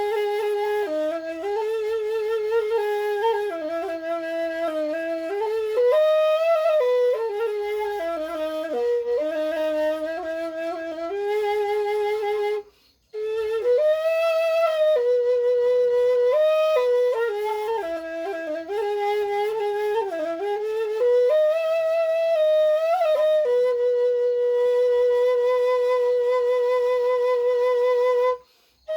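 Balinese suling, a bamboo flute, playing a solo melody with a wavering vibrato. It breaks off briefly about halfway through and again just before the end. Near the end it holds one long, steady note for about five seconds.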